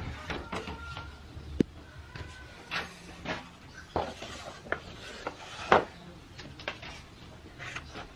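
Metal baking trays being handled, with irregular clinks and knocks of metal on metal as a metal spatula works at a tray of baked cakes. There is a sharp knock about one and a half seconds in and a louder clank about two-thirds of the way through.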